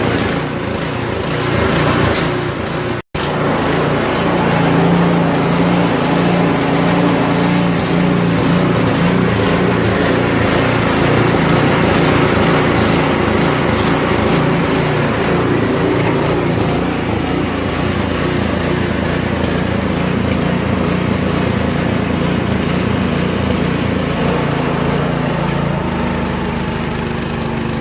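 Small gasoline snow blower engine running steadily while clearing deep snow from a driveway, with a brief dropout about three seconds in.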